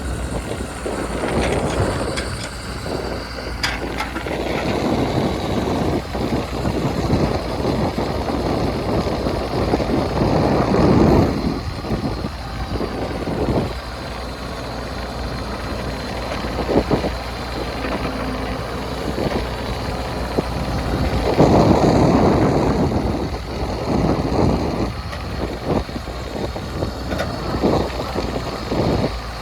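Diesel engine of heavy earthmoving machinery running under work, swelling louder twice, with a few sharp knocks.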